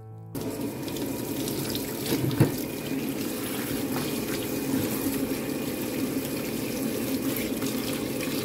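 Kitchen tap running onto a bunch of leafy greens in a sink as they are rinsed by hand, a steady splashing. One sharp knock about two seconds in.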